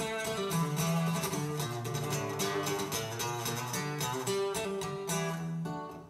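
Plucked acoustic guitar music playing back through a pair of Buchardt bookshelf speakers, dying away near the end.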